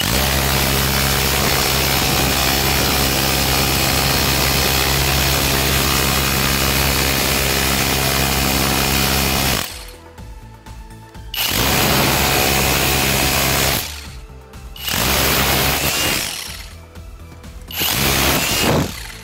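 Cordless rotary hammer drill hammering a flat chisel bit into a concrete paving block: one long run of nearly ten seconds, then three shorter bursts with short pauses between.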